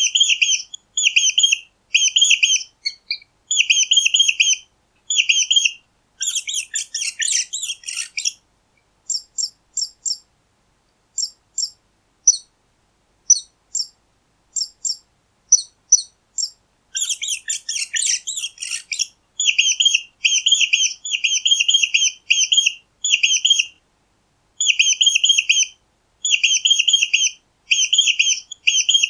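Mice squeaking: clusters of short, high squeaks repeated about every second, thinning to sparse single chirps in the middle and with two denser, scratchier flurries of squeaking.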